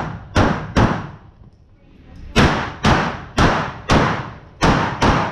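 Handgun shots in quick succession: two shots, a pause of about a second and a half, then a string of about seven shots roughly a third to half a second apart, fired by a competitor working through a pistol-match stage.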